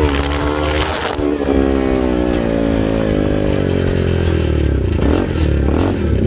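Motorcycle engine on the move, revving up briefly about a second in, then its note falling slowly over several seconds as it eases off, over a steady low rumble.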